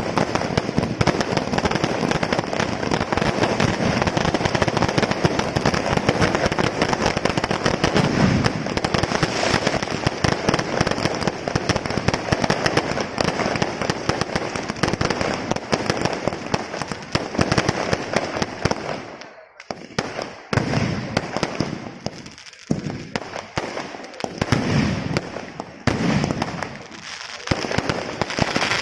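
Aerial fireworks display: a dense, continuous barrage of rapid bangs and crackling, which thins out briefly about two-thirds of the way through before separate bursts start again.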